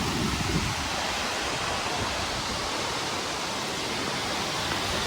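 Steady rushing of a waterfall: an even hiss that does not change.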